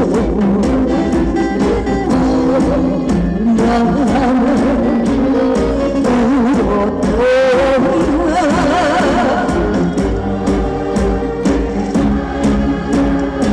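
Trot song with a woman singing over a backing track, her long notes wavering in a heavy vibrato.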